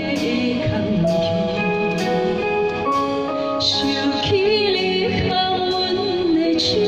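A woman singing a held, wavering melody into a handheld microphone over instrumental accompaniment.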